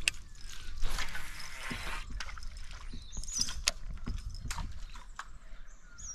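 A canoe being paddled on a calm river: paddle strokes dipping and swishing in the water, with scattered light knocks of the paddle against the hull. A bird chirps briefly about three and a half seconds in.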